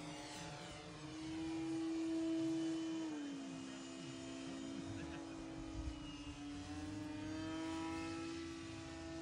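Electric motor and propeller of a radio-controlled high-wing plane whining steadily in flight. The pitch drops about three seconds in and rises again about seven seconds in as the throttle or distance changes.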